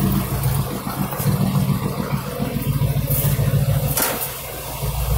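1977 Mercury Marquis V8 engine idling steadily when warm, with a few brief knocks about three and four seconds in.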